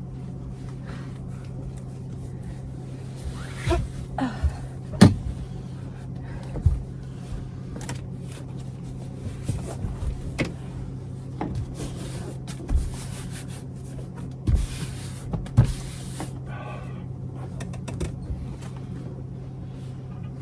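Scattered knocks, taps and rustling as a vinyl headliner panel is handled and pressed up against the RV ceiling, the sharpest knock about five seconds in, over a steady low hum.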